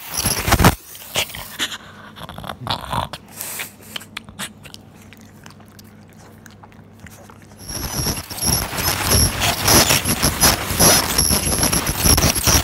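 Ultrasonic dental scaler working on a dog's teeth: a high steady whine over spraying water and the tip scraping tartar. It stops just under a second in and starts again about eight seconds in; the gap between is quieter, with scattered clicks and a faint low hum.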